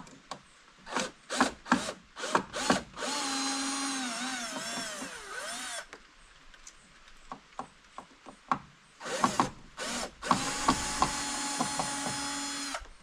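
Cordless drill-driver run in two bursts of about three seconds each, backing screws out of the door. The motor's pitch dips and wavers under load in the first burst and holds steady in the second. Short clicks and knocks come before and between the bursts.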